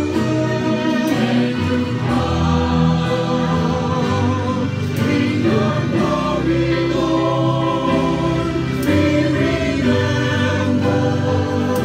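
A choir singing Christian sacred music, long held notes that change every second or two over a sustained low part.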